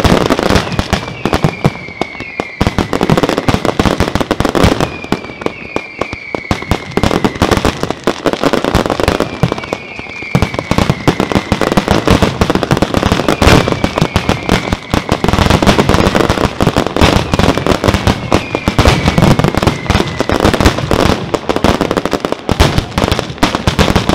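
Fireworks display going off without pause: a dense barrage of rapid bangs and crackling. Short falling whistles recur about every second and a half to two seconds.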